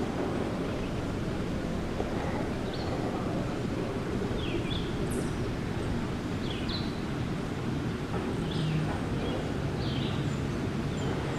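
Steady outdoor rumble and wind on the microphone of a chairlift ride, with faint short high chirps every second or so.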